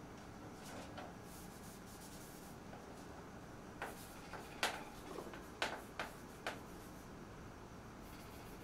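Chalk on a blackboard: a faint rubbing as a word is wiped off, then chalk writing a word, with about half a dozen sharp taps and scratches between about four and six and a half seconds in.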